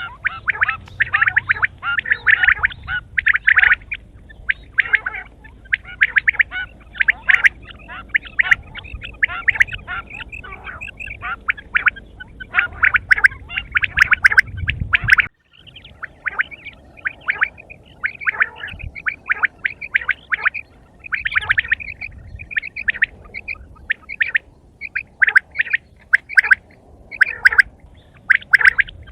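Quail calling over and over in quick clusters of short, harsh notes. Several calls overlap. There is a brief break about halfway through.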